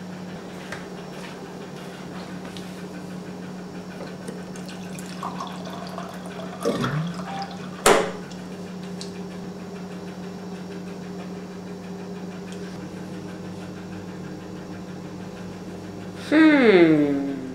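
Water running from the tap of a bottled-water dispenser into a plastic cup, with a sharp knock about eight seconds in, over a steady low hum. Near the end a loud, drawn-out sound falls in pitch.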